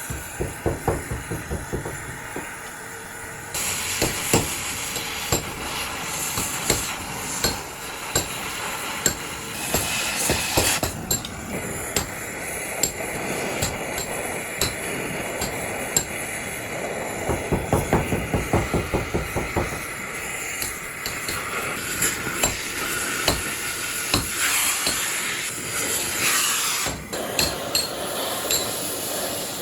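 Metal being struck repeatedly with a hammer, in quick runs of several blows a second near the start and again about two-thirds of the way through, with a steady hissing workshop noise between them.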